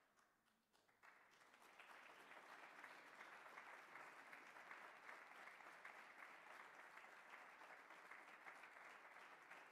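Audience applauding: a few scattered claps at first, then full, steady applause from about a second in.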